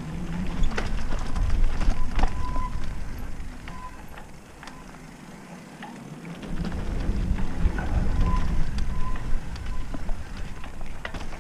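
Mountain bike riding down a dirt singletrack: a low rumble of tyres over the ground with frequent clicks and rattles from the bike. It eases off for a couple of seconds in the middle and picks up again from about six and a half seconds in.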